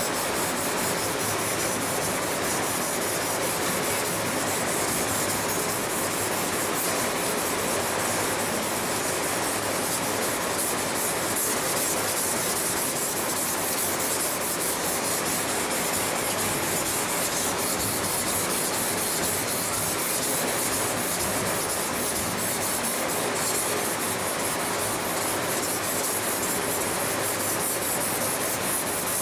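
Flat of a carbon-steel Sabatier chef's knife blade rubbed back and forth on a wet whetstone, a steady gritty scraping as the surface rust is worked off.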